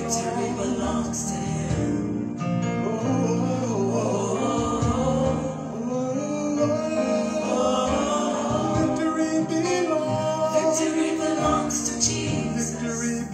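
A worship song sung live by several voices together, male and female, with keyboard accompaniment.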